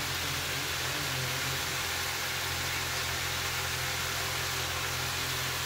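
Steady kitchen background: an even hiss with a low hum under it.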